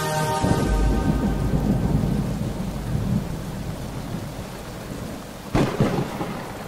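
Thunderstorm: steady rain with a deep rolling rumble of thunder building about a second in, and a sharp thunderclap near the end.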